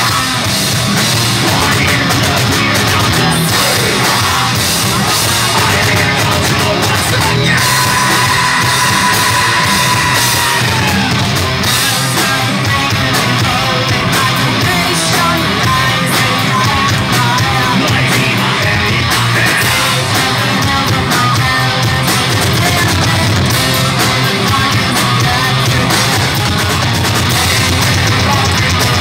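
Heavy metal band playing live: distorted electric guitars, bass and drum kit under shouted and sung vocals from a male and a female singer. A single high note is held for about three seconds roughly a quarter of the way through.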